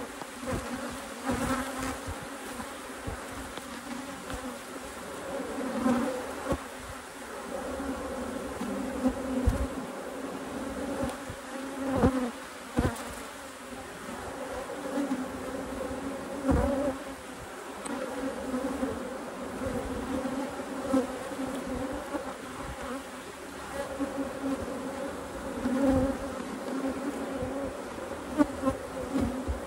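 Honeybees from an opened hive buzzing in a steady hum, with a few dull knocks now and then.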